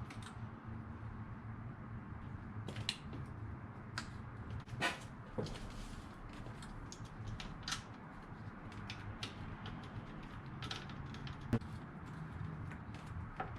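Scattered clicks and light knocks of hand work on engine-bay parts as a coil-on-plug ignition coil is unplugged and pulled from the engine, with a steady low hum underneath.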